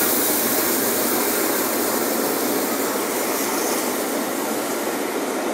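Steam locomotive and its coaches passing close by at speed: a steady rushing noise of steam and wheels on the rails.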